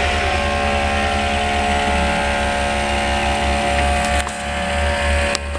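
Kei truck's small engine running steadily under load while crawling off-road, its level dipping briefly about four seconds in.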